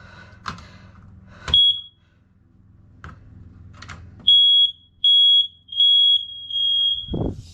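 Smoke alarm being tested: a click and one short high chirp about a second and a half in, then four loud high-pitched beeps, the last one longer, before it stops. A low thump near the end.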